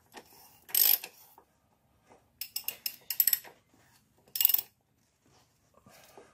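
Socket ratchet clicking in four short bursts of rapid clicks as the fittings are wound into the oil filter housing.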